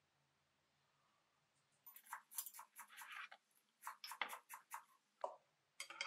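A quick run of small clicks and rustles from tableware and food being handled: a glass of iced drink lifted from the tray and naan being picked up and torn. It starts about two seconds in.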